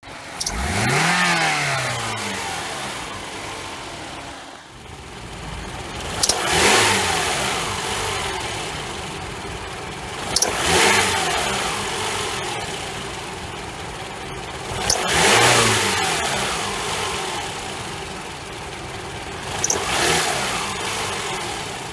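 Toyota Camry engine revved five times, each rev rising quickly and falling back over a few seconds. A whistle under the hood comes with the revs, like a stretched belt's, but caused by the alternator's overrunning clutch pulley having seized.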